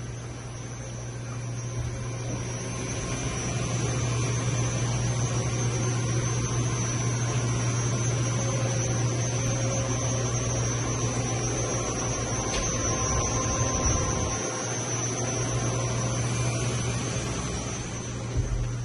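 A steady low hum with a thin, faint high-pitched whine above it.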